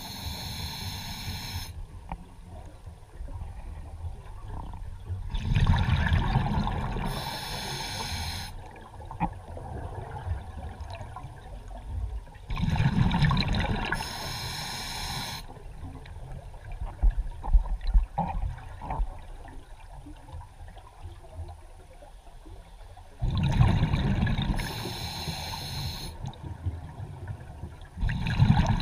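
A scuba diver breathing through a regulator: a bubbling exhale and a hissing breath come in about five bursts, several seconds apart. A few sharp knocks sound near the middle.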